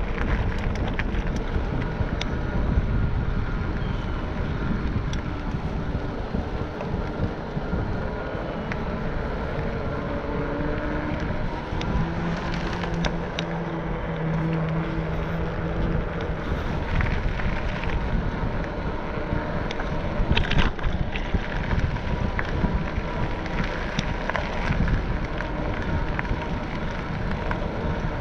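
Wind buffeting the microphone and a steady low rumble from a camera travelling along a paved road. A steady hum comes in about ten seconds in and fades a few seconds later, and there are a few sharp clicks about twenty seconds in.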